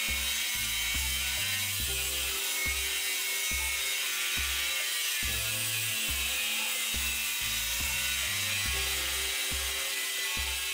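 Cordless brushless angle grinder with its cutting disc cutting through a steel bar, a steady high grinding hiss. Background music with a pulsing bass line runs underneath.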